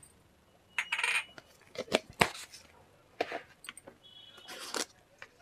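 Clinks and knocks of metal kitchen utensils against a metal cooking pan: a string of short sharp strikes, one ringing briefly, and a short scrape near the end.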